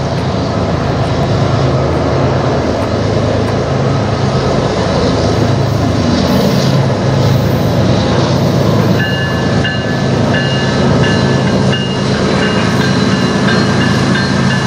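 CN 2861, a GE ES44AC diesel-electric locomotive, approaching and passing at the head of a freight train, with the diesel engine's steady drone and the rumble and clatter of wheels on rail. From about nine seconds in, a bell rings steadily.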